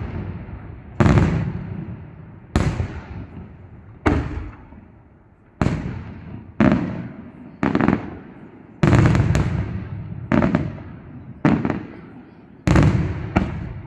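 Aerial firework shells bursting one after another: about a dozen sharp booms, roughly one a second, each trailing off in a rumble that dies away before the next.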